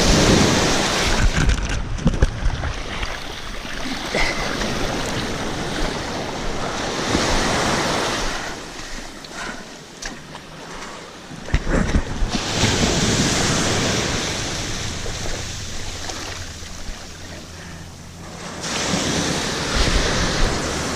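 Ocean surf breaking with wind buffeting the microphone, the rush swelling and easing over several seconds at a time.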